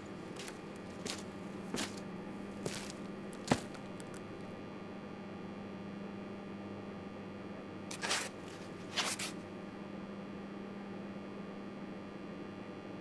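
A steady low electrical hum, with scattered light clicks and knocks over it. The sharpest click comes about three and a half seconds in, and two short scuffing noises follow around eight and nine seconds.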